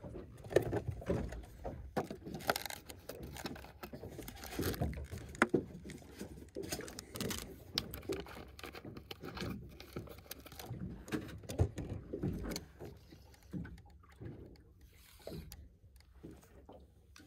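Irregular light knocks, clicks and clatter of handling aboard a small fibreglass boat.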